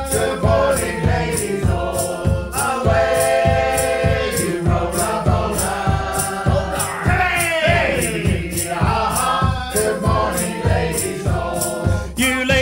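Sea shanty music: a group of singers with a steady percussive beat about twice a second.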